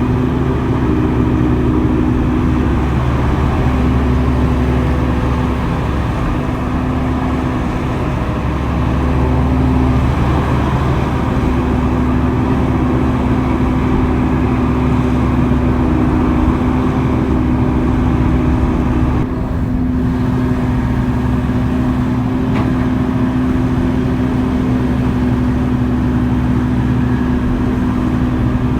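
Heavy earthmoving machinery's diesel engine running steadily, with a brief dip about two-thirds of the way through.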